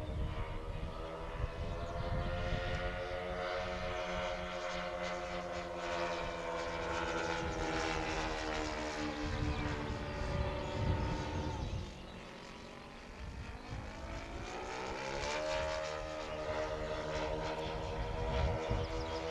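Twin four-stroke ASP model engines of a radio-controlled P-38 Lightning in flight, a steady buzzing drone. About twelve seconds in the pitch falls and the sound fades, then it climbs back in pitch and loudness a few seconds later as the model comes round again.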